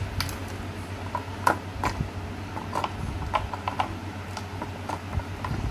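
Scattered light clicks and taps of a metal projector lens unit and a plastic fog lamp housing being handled and knocked together, the sharpest about one and a half seconds in, over a steady low hum.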